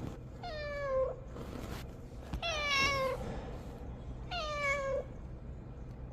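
Domestic cat meowing three times, each meow lasting well under a second and sliding down in pitch toward its end.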